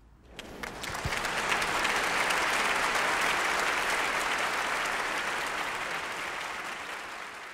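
Applause from many hands, a dense even clapping that swells over the first second or two, holds, then slowly fades toward the end.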